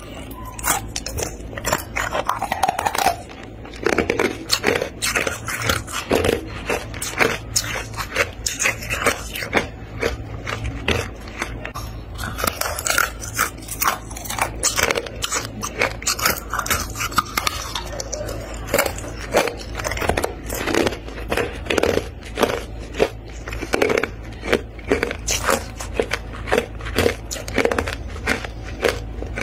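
Hard, crunchy freezer frost being bitten and chewed close to the microphone: a dense, unbroken run of crisp crunches and cracks.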